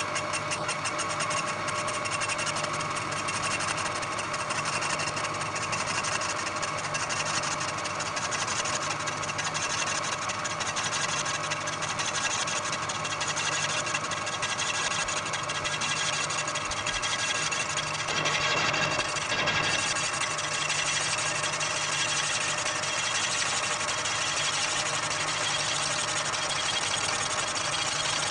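Bridgeport milling machine fly-cutting the top of a drill press table, the motor and the cutter's interrupted cut sped up eightfold into a steady, fast mechanical rattle.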